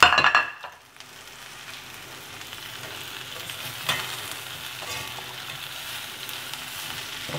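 Chicken pieces and julienned vegetables sizzling in a hot kadai as they are stir-fried with a metal spatula, which scrapes the pan a couple of times. A loud burst of noise comes right at the start.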